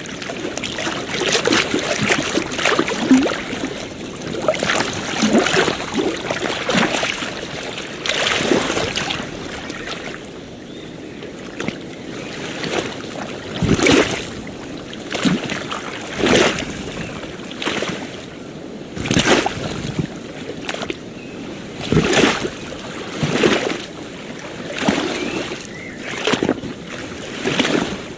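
Small ocean waves lapping and slapping against the shore in short, irregular splashes, roughly one every second or two, over a steady wash of water.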